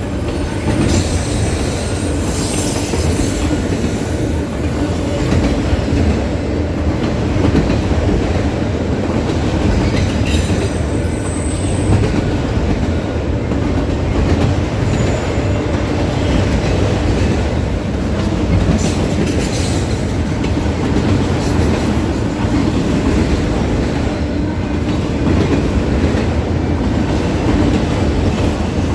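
Train rolling past, its wheels clacking steadily over the rail joints, with a few brief high-pitched wheel squeals in the first half.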